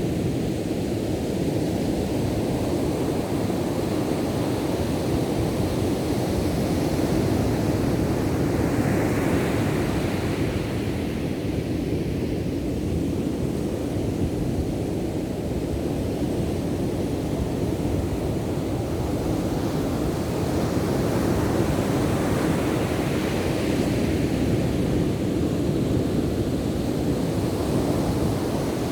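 Ocean surf: a steady low rumble of waves, with a breaking wave swelling into a louder hiss about a third of the way in and again about three quarters of the way through.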